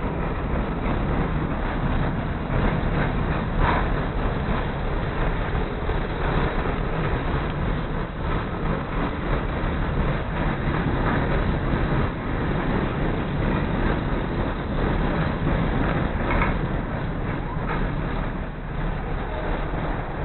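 CTA 2400-series rapid transit car running at speed, heard from inside the car: a steady rumble of wheels on the rails and running gear, with a few faint brief clicks.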